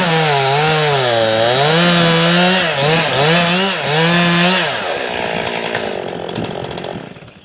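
Gas chainsaw cutting into a tree trunk during a bore (plunge) cut, its engine pitch dipping and recovering several times as the bar loads in the wood. About five seconds in the throttle is released and the saw winds down.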